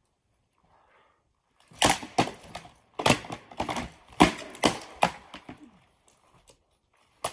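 Weapons striking wooden shields in a sparring exchange: a rapid run of about ten sharp clacks in quick clusters, starting about two seconds in and dying away after about four seconds.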